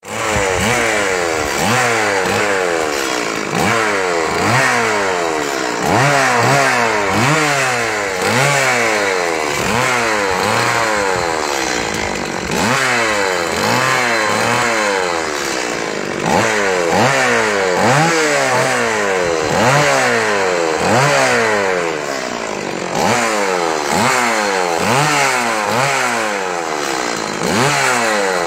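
Two-stroke chainsaw engine revved again and again, its pitch climbing sharply and dropping back about once a second.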